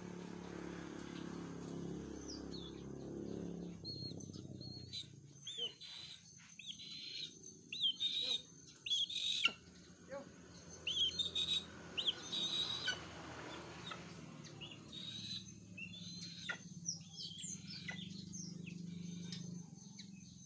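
Young white-bellied sea eagle giving short, high chirping calls in quick bursts, loudest in the middle, over a low steady hum.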